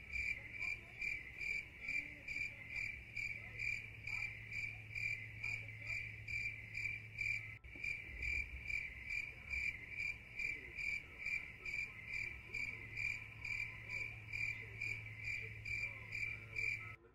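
Cricket chirping steadily and evenly, about two to three chirps a second, over a low steady hum.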